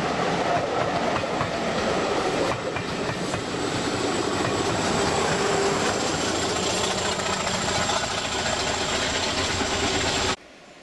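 Railway passenger coaches rumbling and clattering past on the track, with a thin steady high-pitched whine joining in about two and a half seconds in. The sound cuts off suddenly near the end.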